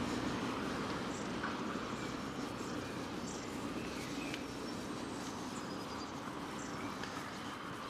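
Small birds chirping in short, repeated calls over a broad rushing background noise that fades gradually.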